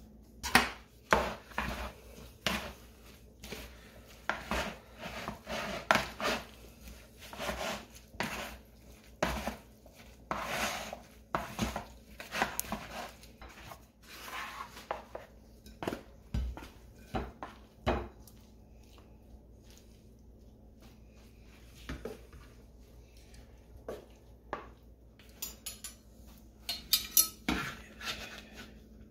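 Wooden salad utensils clacking and scraping in a plastic mixing bowl as kale is tossed with dressing, an irregular run of knocks. Later, cutlery clinks against ceramic plates as the salad is served, with a few bright ringing clinks near the end.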